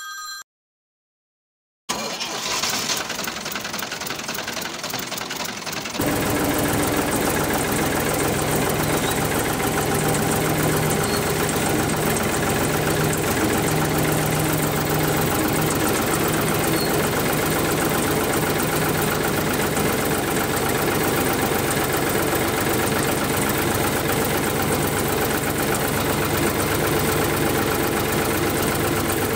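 Tractor engine idling steadily. It comes in about two seconds in and gets louder about six seconds in.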